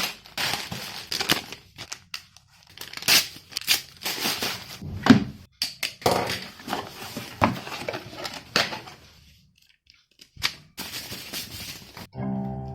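Packaging being opened by hand: irregular tearing, crinkling and rustling of wrapping and a cardboard box. It goes quiet briefly about ten seconds in, and music starts just before the end.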